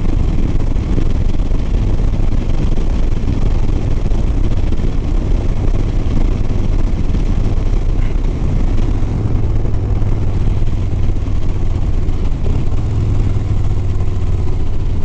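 Harley-Davidson Sport Glide V-twin engine running steadily at cruising speed, under a constant rush of wind and road noise.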